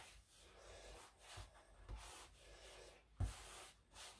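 Hands kneading pizza dough on a floured granite worktop: faint rubbing and pressing of the dough against the stone, with one sharp knock about three seconds in as the dough is pushed against the counter.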